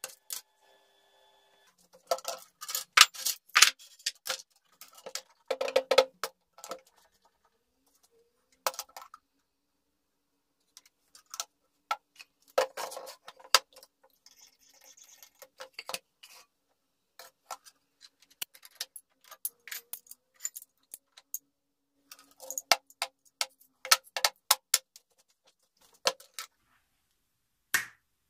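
Irregular clusters of sharp clicks and clatters as small metal and wooden jig parts are handled and set down on a box and steel bench, with short quiet gaps between them.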